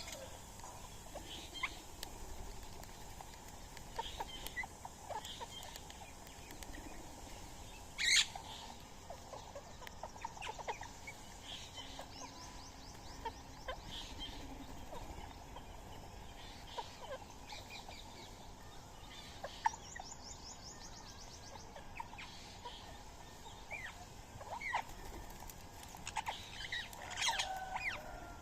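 Scattered short bird calls and chirps, with one loud sharp call about eight seconds in and a fast, even trill about twenty seconds in.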